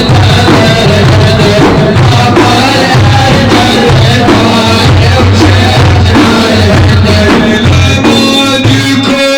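Music from a Sufi madih praise song, played without words: a loud, steady drum beat with heavy bass under a wavering melodic line.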